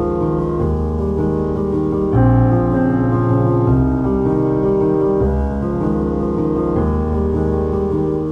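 Background piano music, slow held chords changing every second or two.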